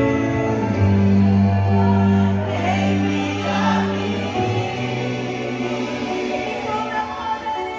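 Gospel worship music: a choir singing over long held electronic keyboard chords and a steady bass line.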